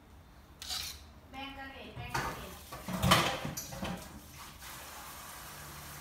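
Stainless-steel pot and utensils knocking and scraping on a kitchen countertop: a few scattered clinks and scrapes, one with a brief metallic ring, and the loudest clatter about three seconds in.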